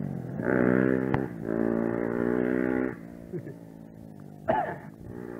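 Engine drone at a steady pitch, running for a second or two at a time and falling away in between, with a short sharp squeak about four and a half seconds in.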